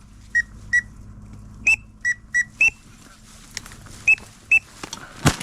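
A duck whistle blown in short, high peeps, mostly in pairs at two slightly different pitches, calling to teal. Near the end comes a single loud shotgun shot.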